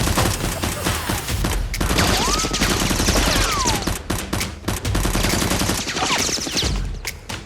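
Gunfire sound effects: dense, rapid automatic fire, shot after shot, with a few sliding whines about two seconds and six seconds in.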